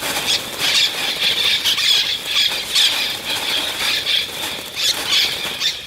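A flock of parrots squawking, many harsh, shrill calls overlapping without a pause.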